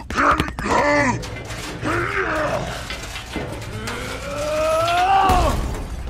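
Dubbed-in cartoon sound effects: several short grunt-like vocal sounds, then a long pitched call that rises for about two seconds and cuts off sharply.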